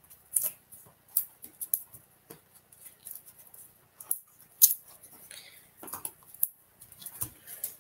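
Small crisp clicks and rustles of paper and card being handled: foam adhesive dots (dimensionals) are peeled from their backing sheet and pressed onto the back of a cardstock panel. The sharpest click comes about halfway through.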